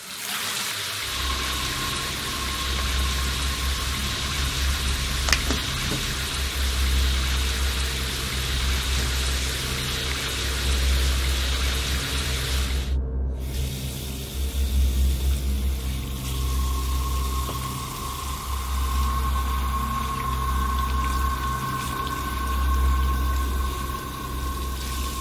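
Water running steadily in a bathroom, from a shower and then a sink tap, with a brief dropout a little after halfway. Underneath is a low, throbbing music drone.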